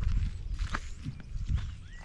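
Footsteps of a hiker walking along a trail: repeated low thuds with light scuffs.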